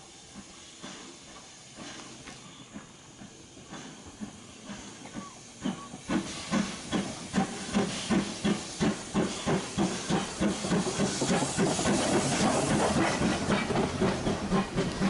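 Ivatt Class 2MT steam tank locomotive approaching and running past close by, chuffing with a steady beat of about two exhaust beats a second over a hiss of steam. It grows much louder about six seconds in as it draws level.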